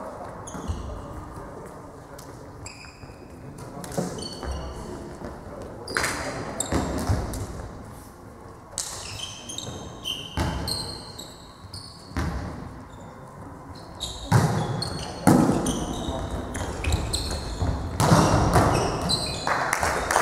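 Indoor volleyball rally: the ball smacks sharply off players' hands and arms again and again, and short high squeaks come from sneakers on the hall floor. Players shout calls, loudest in the last few seconds, and it all echoes in the large sports hall.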